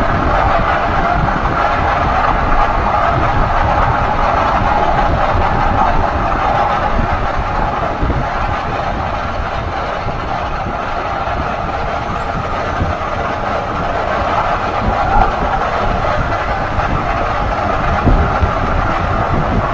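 Steady road and driveline noise from a 2016 Ford F-150 SuperCrew at speed, with a drone in the middle range that the owner takes for a dry bearing.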